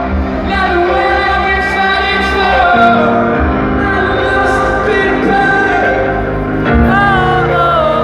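A live rock band playing with singing.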